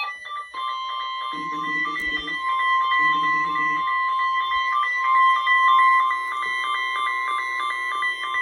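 NOAA Weather Radio 1050 Hz warning alarm tone: one steady, high, piercing tone that starts about half a second in and holds, sounded as part of the required weekly test. Music and a regularly pulsing higher tone play faintly alongside it in the first seconds.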